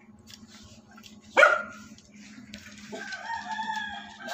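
A dog barks once, sharply, about a second and a half in. About a second later a rooster starts a long crow that is still going at the end.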